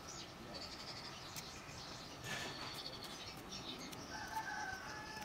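Birds calling: scattered high chirps, with one longer held call about four seconds in.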